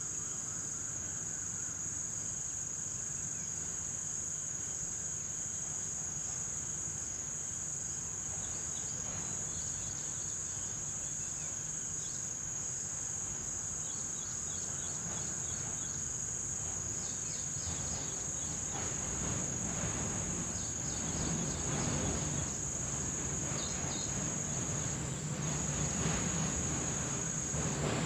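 Crickets trilling in one steady, unbroken high-pitched tone. Wind rustles through palm fronds underneath and swells louder in the second half.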